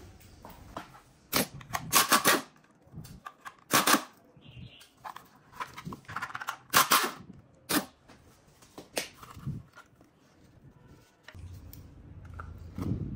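A corroded cordless-tool battery pack's plastic case is pried apart by hand, giving a run of sharp plastic cracks and snaps at uneven intervals. A low rubbing sound follows near the end.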